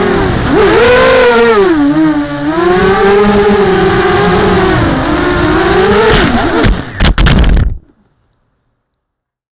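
The four brushless motors and propellers of a ZMR 250 mini quadcopter whining loudly as it flies, the pitch rising and falling with the throttle, heard from the camera on board. About seven seconds in, a few sharp knocks as the quad crashes into the road, and then the sound cuts off.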